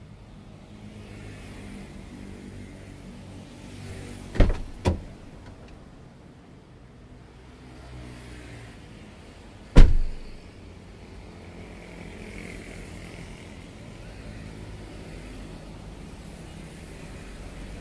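Two sharp knocks about four and a half seconds in and a single louder bang near ten seconds, over a steady low hum.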